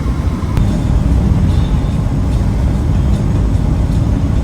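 Camper van driving at road speed in strong, gusty wind: a loud, steady rumble of road and wind noise heard inside the cabin.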